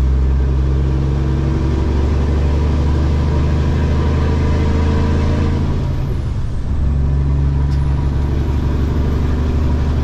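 Semi-truck diesel engine running steadily under way, heard from inside the cab, with a brief dip about six seconds in before it settles back.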